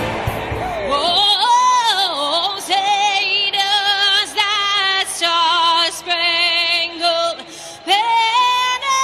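A woman singing solo, a slow melody of long held notes with vibrato, starting about a second in after a short stretch of noise.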